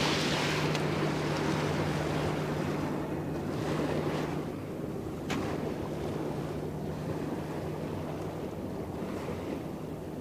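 Water rushing and splashing along the hull of a moving boat, with a faint steady engine hum underneath that fades out near the end. The rush gradually eases, and a single sharp click comes about five seconds in.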